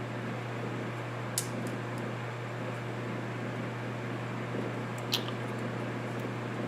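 Steady fan-like whir with a constant low hum, broken by two short, sharp clicks, one about a second and a half in and one about five seconds in.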